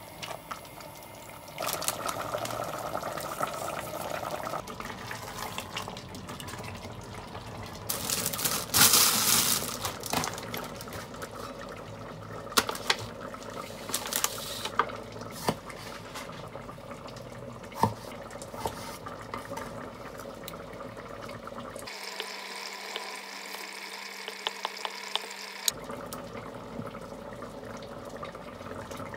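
Kitchen food-preparation sounds: running water, loudest in a rush of a couple of seconds about eight seconds in, and later sharp clicks of a knife on a wooden cutting board.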